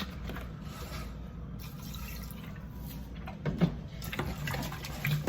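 Vinegar being poured and splashing over raw chicken wings in a bowl, with a light knock about three and a half seconds in.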